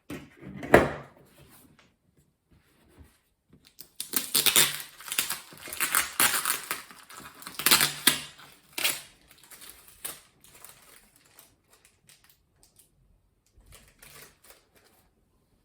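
Packaging being handled and torn open: irregular crinkling, tearing and rustling with sharp clicks and knocks, busiest in the middle.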